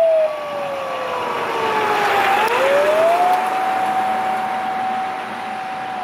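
Fire engine siren wailing, sliding slowly down in pitch, sweeping back up about two and a half seconds in, holding high, then starting to fall again at the end. A fainter second siren tone dips and rises alongside it, with road traffic noise swelling in the middle.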